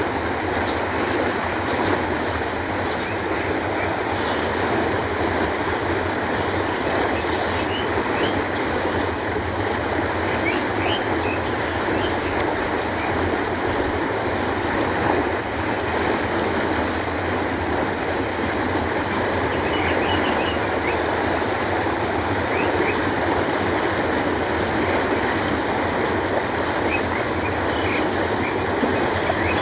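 Canal water flowing with a steady rushing sound, with faint bird chirps now and then.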